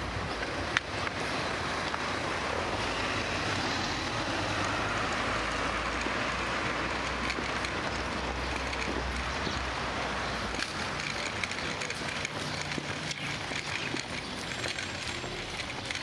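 Outdoor city street ambience: a steady rush of noise that swells for several seconds in the middle, with one sharp click about a second in.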